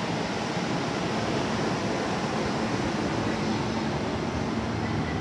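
Steady whirring hum from a stationary JR E231 series commuter train, its air-conditioning and equipment fans running.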